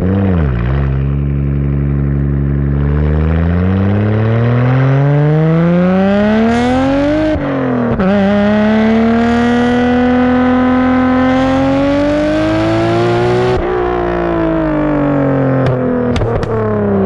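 Nissan Skyline GT-R R33's RB26DETT twin-turbo straight-six through a Tomei titanium exhaust, heard at the tailpipe while driving. The revs dip at the start, then climb hard through a gear and drop sharply at a shift about seven seconds in. They pull up again until near the end, where the driver lifts off and the exhaust gives a few sharp pops.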